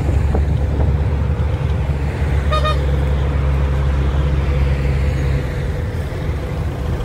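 Steady low engine and road drone of a vehicle driving, with a short horn toot about two and a half seconds in.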